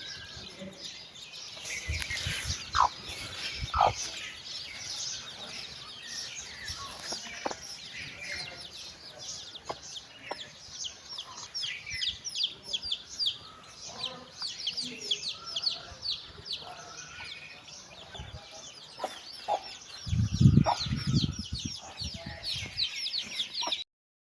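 A brood of chicks peeping continuously in rapid, high, downward-sliding chirps. A hen clucks low and loud a few times near the end, and the sound cuts off suddenly.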